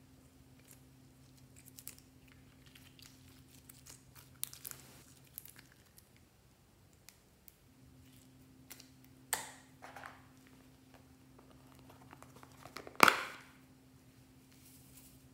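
Hands working glossy slime into a glass dish and handling a small clear plastic tub: soft sticky crinkling and light handling noises, with a few sharp taps, the loudest about thirteen seconds in.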